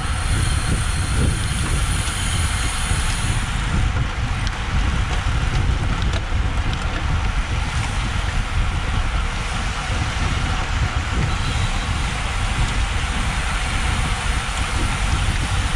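Wind buffeting a GoPro's microphone on a road bike at race speed: a steady low rumble with a rushing hiss.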